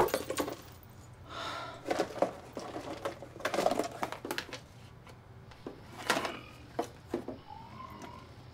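Someone rummaging through a wooden box of papers and objects: irregular knocks, clatters and paper rustles, some louder than others.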